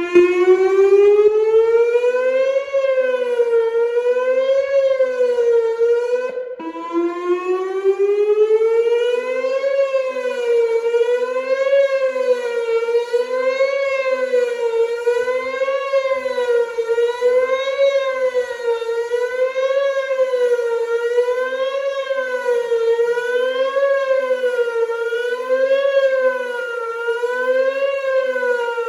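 Whelen WPS 2910 electronic outdoor warning siren sounding its monthly test: it starts abruptly, rises in pitch, then wavers up and down about every two seconds in a steady, loud tone. It breaks off briefly about six seconds in and climbs again before settling back into the same wavering.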